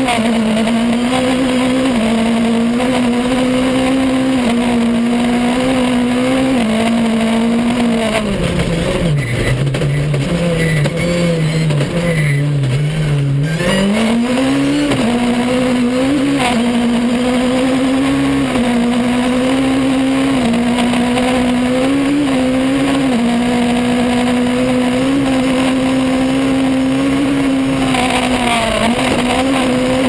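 Honda S2000 engine of a Fouquet four-wheel-drive off-road rally car, heard from inside the cockpit, held at high revs at full speed on a dirt track. About eight seconds in the revs drop away for several seconds as the car slows, then climb back and hold high again, with brief dips at gear changes.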